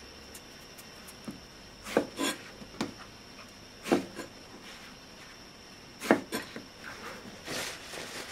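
Kitchen knife cutting through eggplant onto a wooden cutting board: a run of separate sharp knocks, some close in pairs. Near the end comes a short rubbing swish of a paper towel wiping the cut pieces.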